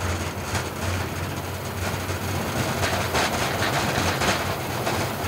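Airbus A350-900 at full takeoff thrust on its high-speed takeoff roll, heard from the flight deck: a steady low rumble of engines, tyres and airflow, with several short bumps from the runway surface.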